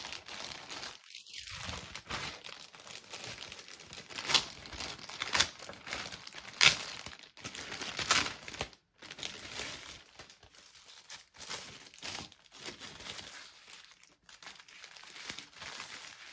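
Packaging crinkling and rustling as it is handled, with several louder sharp crackles in the middle.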